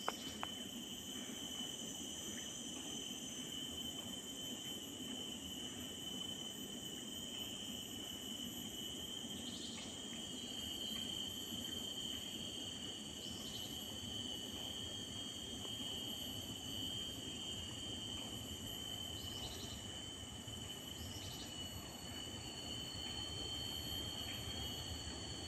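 Steady insect chorus from the trackside forest: several insects each holding a continuous high tone, with a few brief chirps breaking in now and then over a faint low background rumble.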